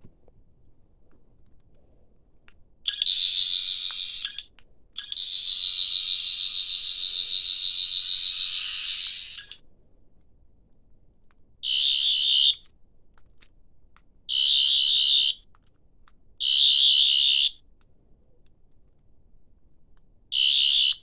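Toy 14th Doctor sonic screwdriver sound effect from its small speaker: a high-pitched warbling whine switched on and off in bursts. A short burst, a long one of about four seconds, then four short bursts of about a second each.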